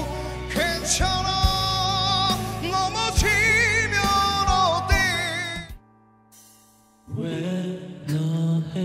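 A singer holds wavering sung notes over a band with drum hits, and the music stops about six seconds in. After a second of near silence, a softer instrumental introduction of another song begins.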